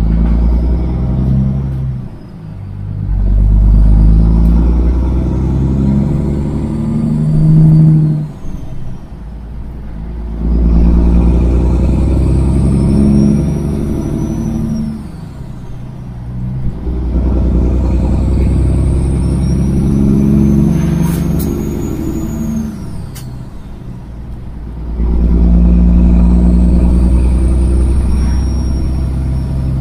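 Kenworth semi truck's diesel engine with straight pipes, pulling up through the gears from a stop. The loud exhaust note climbs with each gear and drops at each of about four shifts, with a high whistle rising and falling alongside it.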